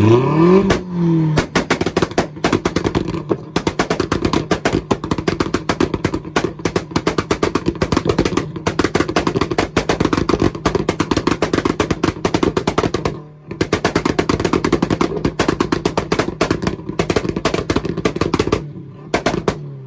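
Audi engine revved up onto its two-step launch limiter and held there, the exhaust popping and cracking in a rapid continuous string over a steady engine note, with one brief break about two-thirds of the way through. Near the end the popping stops and the revs fall away.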